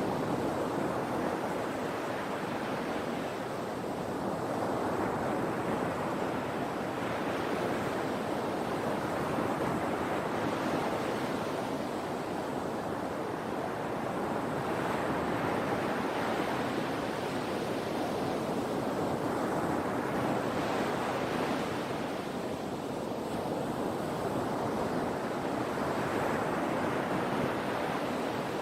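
Sea waves breaking and washing in: a steady surf that swells every three to four seconds as each wave comes in.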